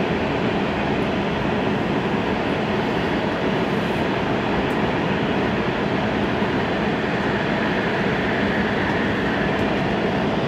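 Steady running noise of a passenger train at speed, heard from inside the car: an even rumble and rush without pauses or clear wheel beats.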